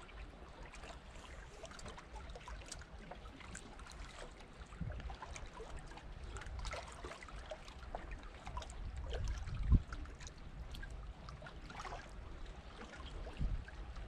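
Water lapping and trickling, with scattered light clicks and a louder low thump about ten seconds in.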